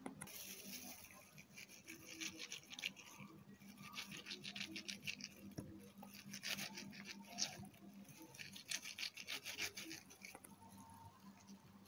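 A kitchen knife cutting into a peeled ripe mango in quick, repeated strokes, dicing the soft wet flesh. The strokes come in about five short runs.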